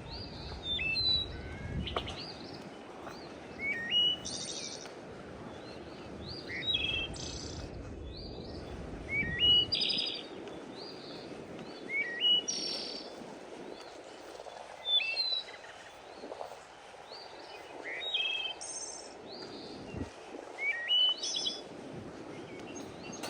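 A songbird singing a short phrase of quick stepped whistled notes, repeated about every two to three seconds, over a steady background hiss.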